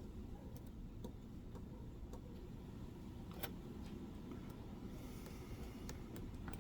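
Faint, scattered metallic ticks of a pick hook working the pin stacks of a five-pin euro cylinder lock under tension, with one sharper click about three and a half seconds in.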